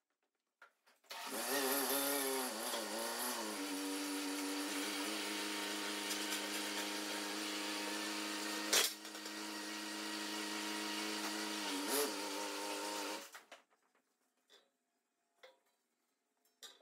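A forklift's motor runs steadily for about twelve seconds, its pitch dipping and rising near the start and again near the end, then cuts off abruptly. A single sharp metal knock comes about nine seconds in.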